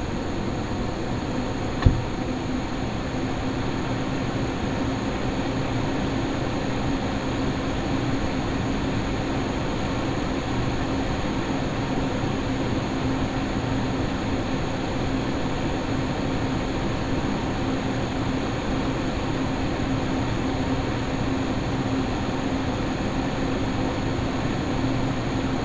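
XPG Vento Gentle Typhoon 120 mm case fans running in a PC case, a steady rush of air with a steady low hum, and a single click about two seconds in. Duct tape now covers the case's top and bottom slits, so the howling the blades made passing those slits is minimized.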